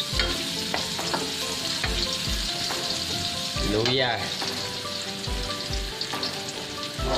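Ginger strips sizzling in hot oil in a metal wok, stirred with a metal spatula that clicks and scrapes against the pan.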